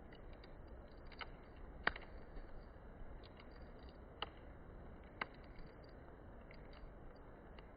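Campfire crackling: burning wood giving scattered small ticks and four louder, sharp pops.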